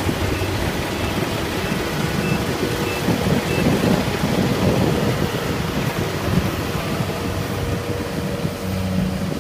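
Kubota rice combine harvester running steadily while it cuts and threshes rice: a low engine hum under a loud, dense rush of threshing machinery.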